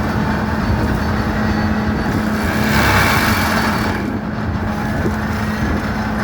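Skid steer engine running hard while its forestry mulcher attachment grinds a stump. A harsher grinding swell comes in about two and a half seconds in and eases off about a second and a half later.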